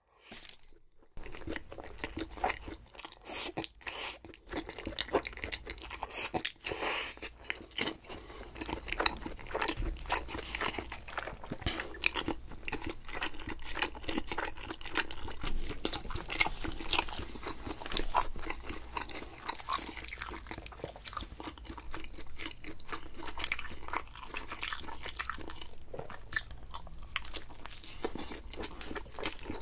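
Close-miked eating of thin-crust pizza: crunching bites and continuous chewing, a dense run of small crisp crackles.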